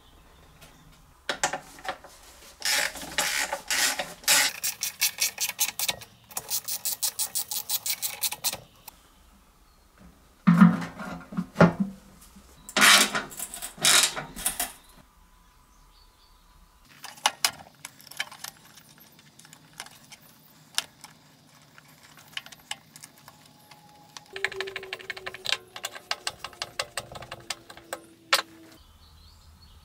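Hand ratchet wrench clicking in quick runs as bolts are tightened, with a few single knocks between the runs.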